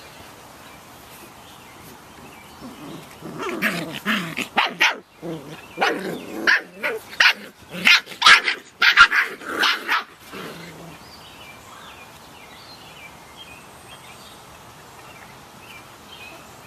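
Samoyed puppies barking and yipping in play: a quick run of short, sharp barks starting a few seconds in and lasting about seven seconds, then stopping.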